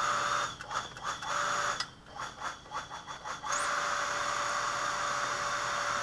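Electric shallow-well jet pump running and pushing well water out to the sprinkler lines. For the first three seconds or so the rush comes in uneven sputtering pulses, then it settles into a steady whir with a faint hum.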